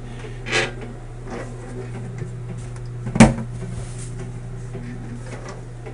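The metal lid of a 1935 Maytag 30WP wringer washer being lifted off the tub and handled, with one sharp clank just after three seconds in, over a steady low hum.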